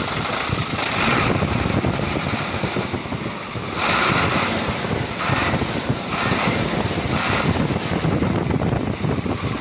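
Mitsubishi Fuso 220 PS truck diesel engine running steadily and smoothly, its injection-pump timer repaired so that the metallic tek-tek knock from the timer is no longer there. The running noise swells briefly a few times.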